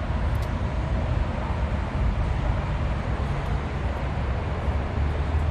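Steady low rumble of outdoor background noise, with a deeper hum that strengthens a little near the end.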